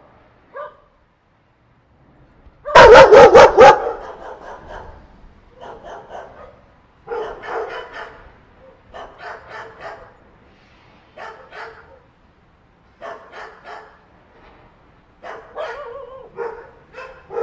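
A group of dogs barking. After a single short bark, a very loud burst of rapid barks comes about three seconds in, followed by bouts of barking every second or two.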